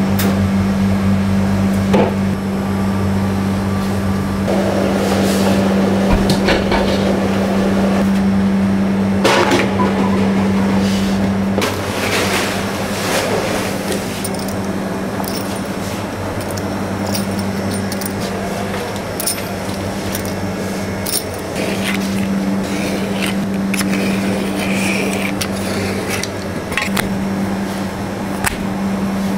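Steady mechanical hum of bakery equipment, its upper tone dropping out for about ten seconds partway through, with scattered knocks and taps of hands and tools on a wooden workbench as laminated croissant dough is marked and cut into strips.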